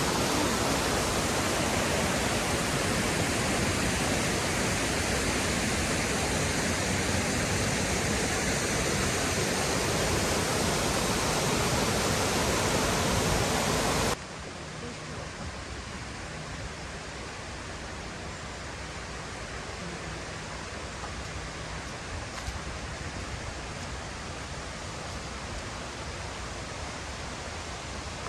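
Rushing water of the Oirase mountain stream, a steady even roar. About halfway through it cuts suddenly to a quieter, softer flow.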